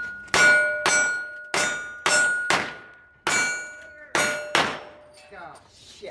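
Revolver fired in quick succession at steel targets, each shot a sharp crack with the struck steel plate ringing on a steady tone. Eight shots about half a second apart, stopping about four and a half seconds in.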